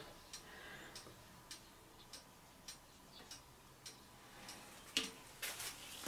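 Faint, fairly regular ticking: soft clicks roughly every half second or so, with a louder click about five seconds in and a few more just after.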